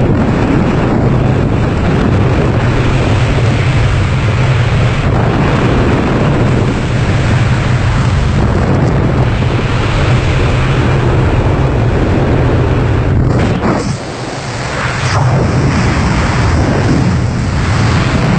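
Loud, steady rush of wind buffeting the microphone, as in freefall after jumping from an aeroplane, easing briefly about three-quarters of the way through.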